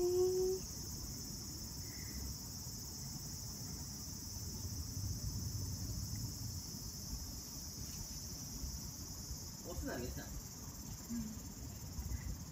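Insects chirring steadily in an unbroken high-pitched drone. A short voice sounds at the very start, and a fainter one about ten seconds in.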